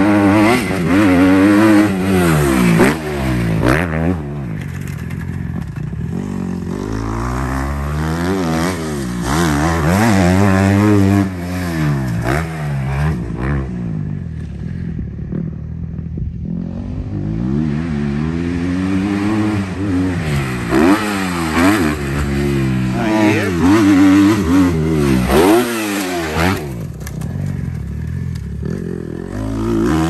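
Kawasaki KX 250F four-stroke single-cylinder motocross engine being ridden hard around a dirt track, its pitch climbing on the throttle and dropping off again every couple of seconds. The sound thins out for a few seconds about halfway through as the bike moves farther off.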